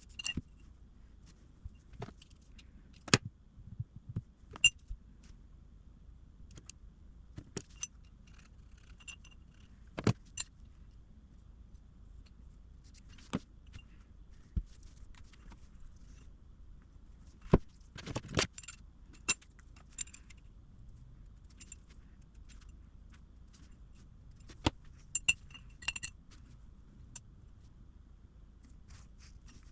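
Small steel parts and tools being handled on a workbench: scattered, irregular metallic clicks and clinks, with a denser run of clinks about two-thirds of the way through, over a faint low hum.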